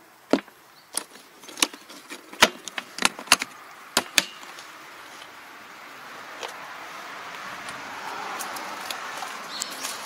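Hard plastic toolbox on a tractor being shut: a quick string of sharp plastic clicks and knocks as the lid and its latches snap closed, over about the first four seconds. After that comes a soft, slowly rising rustling hiss.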